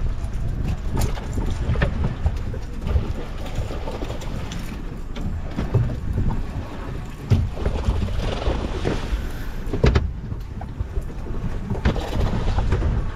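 Wind buffeting the microphone over water slapping against a small fishing boat's hull, with a few sharp knocks.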